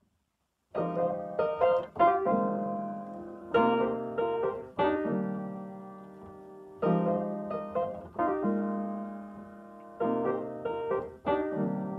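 Upright piano playing slow chords, starting about a second in. Each group of chords is struck and then left to ring and fade before the next phrase.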